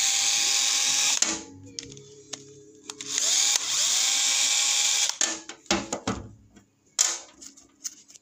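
Bosch cordless screwdriver backing out the screws of a Briggs & Stratton lawnmower carburetor: two short runs of its motor, one stopping about a second in and another lasting about two seconds, each with a whine that rises as it spins up and then holds steady. Scattered clicks and knocks follow as the loosened screw and the carburetor are handled.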